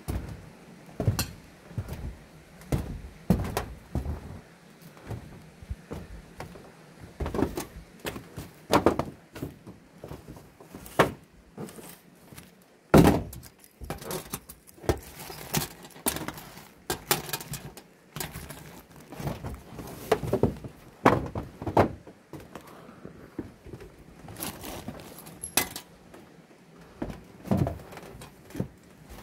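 Irregular knocks, clacks and small metallic rattles of hands-on work on a sheet-metal roof: footsteps and tools set down and picked up on the metal sheets, including a caulking gun and a bag of screws. One louder knock comes about halfway through.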